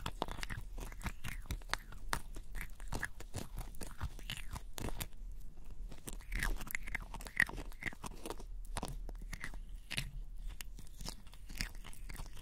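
A clear plastic spatula stirring and scooping gritty lip scrub in a small jar: a dense run of small crackles and scrapes.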